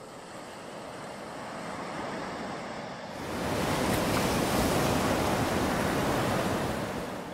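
Sea surf washing onto a beach: a steady rush of waves that swells louder about three seconds in and eases off near the end.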